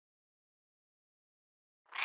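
Dead silence, then a cat's meow begins just at the very end.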